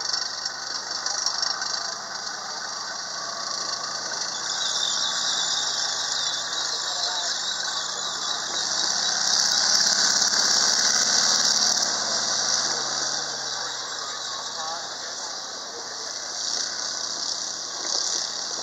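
Tracked armoured vehicle driving past, its tracks squealing over the sound of the engine. Loudest about ten seconds in as it passes closest, then fading as it drives away.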